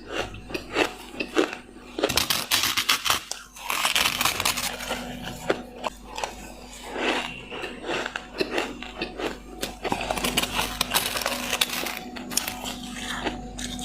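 A person biting and chewing ice: a few separate crunchy bites, then dense, continuous crackling crunches from about two seconds in.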